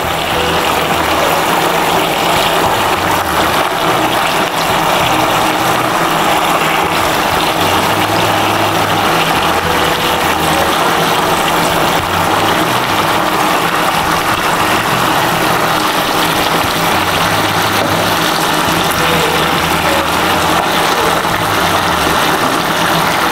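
A pan of Manchurian gravy boiling hard on a high flame with chicken pieces in it, a loud, steady bubbling rush. Background music with low bass notes plays under it.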